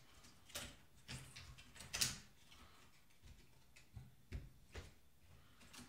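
Small clicks and rustles of a remote control's circuit board and flex ribbon cable being handled and pulled free of its connector, the sharpest click about two seconds in.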